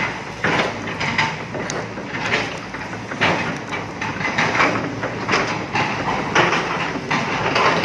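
Excavator working on tree clearing: diesel engine running under a steady low rumble, with irregular rasping and clanking pulses from the machine.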